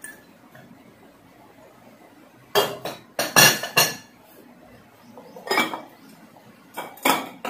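Glazed ceramic jars and their lids clinking and knocking as they are set down and handled. There are several sharp knocks, the first about two and a half seconds in, a group of them just after three seconds, and two more near the end.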